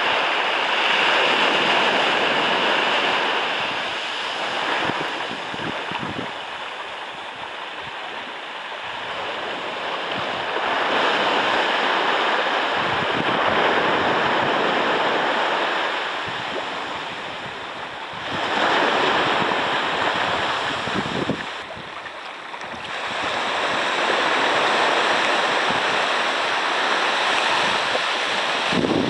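Small waves washing up on a sandy beach, the surf swelling and fading every few seconds, with some wind buffeting the microphone.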